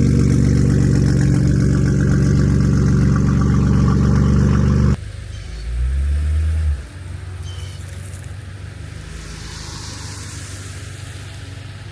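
A car engine idling steadily, loud and close, until it cuts off abruptly about five seconds in. After that comes a quieter low rumble, with a short swell of deep sound near the middle.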